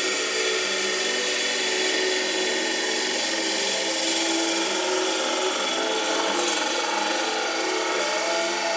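Wood lathe running with a long wooden spindle turning against a hand-held tool or abrasive: a steady hiss of the spinning wood being worked, over the lathe's hum.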